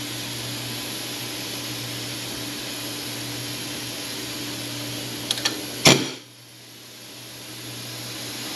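Steady electric hum of shop machinery around a cam grinder. About five seconds in come two light metallic clicks and then a sharp click as the steel camshaft is handled on the grinder's centres against a dial indicator.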